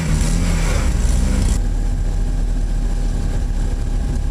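Rock-crawler buggy's engine revving under load as it climbs over boulders. About a second and a half in, the sound switches abruptly to a lower, steady engine rumble.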